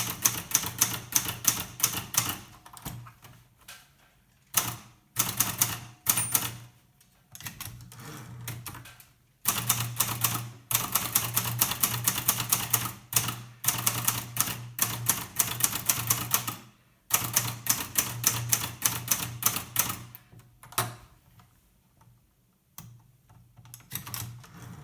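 Hermes Baby portable manual typewriter being typed on: runs of rapid keystrokes broken by short pauses, with fewer, quieter strokes near the end.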